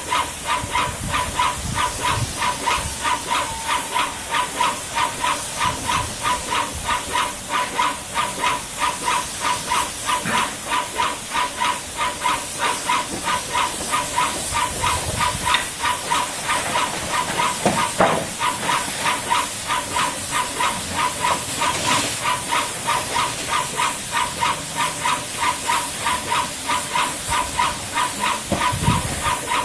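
Airless paint sprayer running: a steady hiss of paint spraying from the fine-finish tip over a rapid, even pulsing from the sprayer's piston pump.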